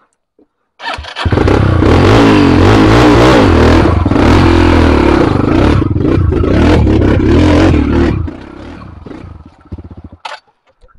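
Dirt bike engine revving hard under load while riding over a rocky trail. It comes in suddenly about a second in, its pitch rising and falling, and drops to a low level about eight seconds in.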